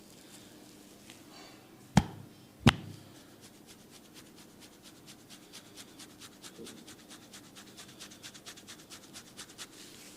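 Hands striking the body in a percussive massage: two sharp slaps about three quarters of a second apart, then a quick, even run of light taps at about five a second for several seconds.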